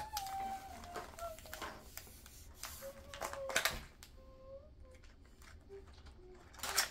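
Small cardboard toy boxes being torn open and handled: scattered tearing and rustling noises, the loudest near the end.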